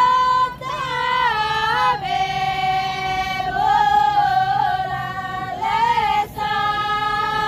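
Group of Toraja pa'katia dancers singing together without instruments, in long held, wavering notes that slide between pitches. The singing breaks briefly about half a second in and again near six seconds.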